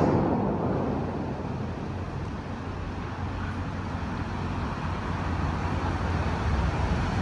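Steady low rumble and rushing noise of a vehicle. It eases off over the first couple of seconds, then slowly builds again toward the end.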